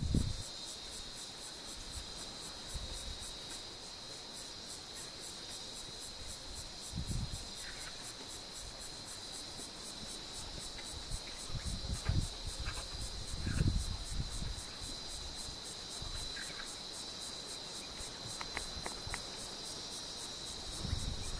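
Steady chorus of insects: a continuous high shrill with a fast, even pulse above it. A few brief low thumps break in now and then, the loudest near the middle.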